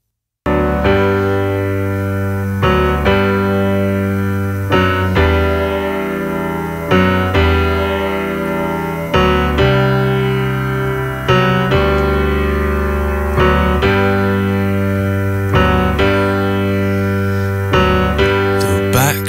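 Keyboard playing sustained chords in a song intro, a new chord struck about every two seconds, starting suddenly after a moment of silence. Near the end a few sharp percussive hits come in.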